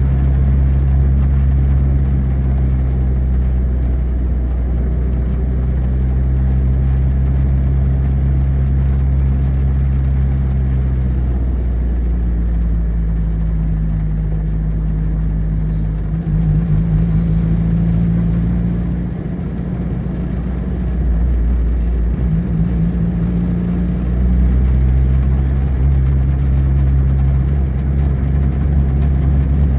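Car engine running while driving, heard from inside the car with a low steady hum and road noise. About twelve seconds in the engine note climbs and holds higher, then settles back to its earlier steady note after about twenty-four seconds.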